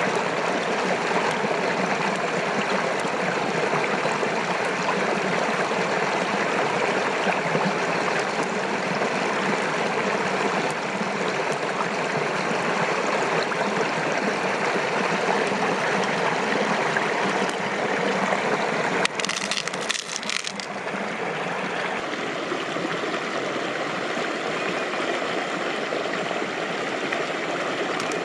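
Steady rush of flowing water, which changes character briefly about two-thirds of the way through and then runs on slightly quieter.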